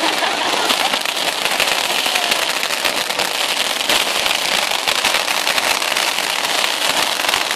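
Ground firework fountains spraying sparks, with a dense, steady crackling hiss.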